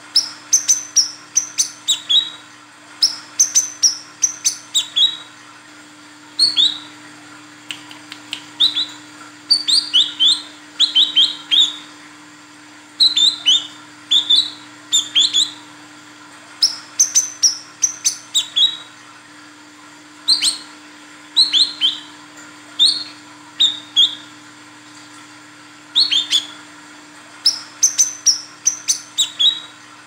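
Female brown-throated sunbird (kolibri kelapa) calling repeatedly: sharp, high chirps that drop in pitch, in quick clusters of several notes with short pauses between. This is the female's call to males, used by bird keepers as a lure to set males singing.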